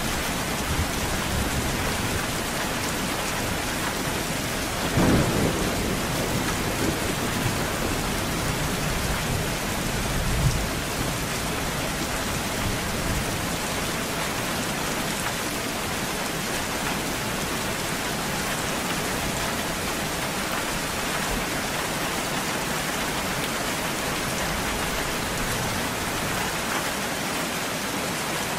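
Steady rain falling, with a clap of thunder about five seconds in and a low rumble of thunder around ten seconds in.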